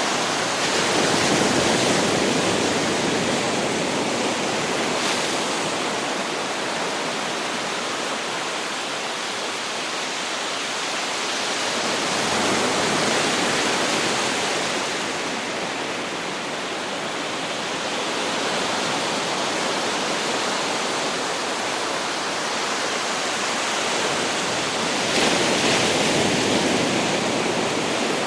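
Ocean waves breaking and washing up on a beach as a continuous rush of surf, swelling with a breaker about every eleven to twelve seconds: near the start, around the middle and near the end.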